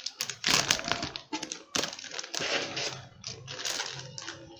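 Thin plastic wrapping crinkling and rustling in irregular bursts as it is pulled off a computer power supply unit.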